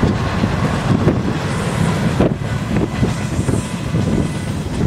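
A train rumbling past, with wind buffeting the microphone.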